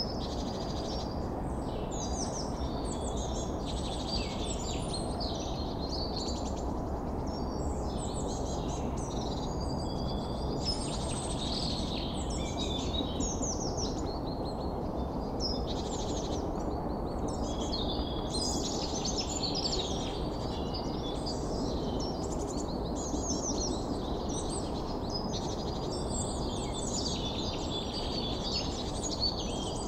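Many birds chirping and trilling at once, dense and continuous, over a steady low rushing background like a forest ambience.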